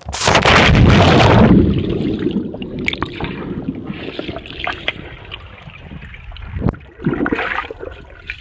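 A loud splash of plunging into a swimming pool, lasting about a second and a half. It is followed by muffled underwater gurgling and bubbling, dulled by the water around the microphone, with a few louder swirls of water.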